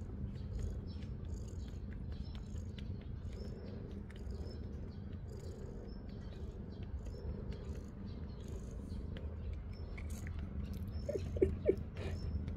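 Domestic cat purring steadily, a low continuous rumble. A few short, sharp sounds come about eleven seconds in.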